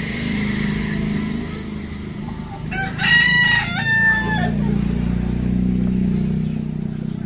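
A rooster crows once, about three seconds in, a stepped call lasting under two seconds, over a steady low hum.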